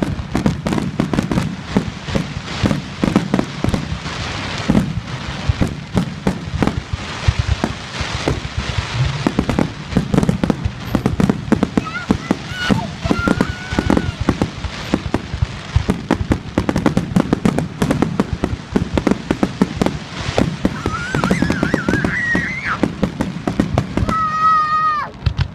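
Fireworks display bursting in rapid, unbroken succession, bang after bang with no pause. A few rising whistles sound in the second half, and a held whistle falls in pitch just before the end.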